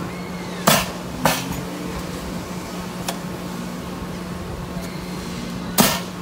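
Shooting-gallery cannons firing: two loud, sharp shots, one under a second in and one near the end, with two fainter ones in between. A steady mechanical hum runs underneath.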